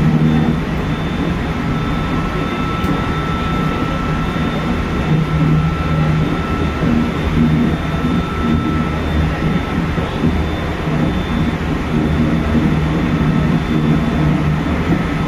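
Hokuhoku Line super rapid electric train running at speed, heard from inside behind the cab: a steady rumble of wheels on rail and running gear, with a faint steady high tone above it.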